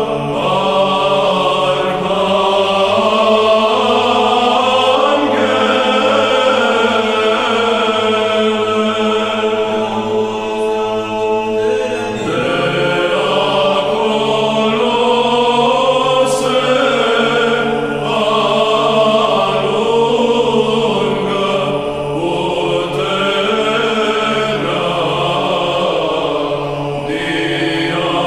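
Background music: a choir chanting in long held notes that shift slowly from chord to chord.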